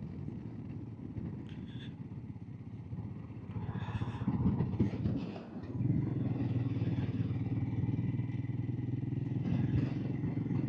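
Royal Enfield Himalayan's single-cylinder engine running on the road, heard through a helmet-mounted microphone. It is quieter for the first few seconds, then picks up about six seconds in and holds a steady note.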